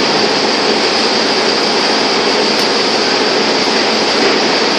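Clear margin saw machine running idle with no wood fed: its spindle motor and 180 mm saw blade spin with a loud, steady whir.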